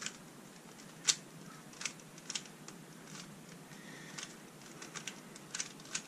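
3x3 Rubik's cube being scrambled by hand: its plastic layers turning with quick, irregular clicks, the loudest a little over a second in.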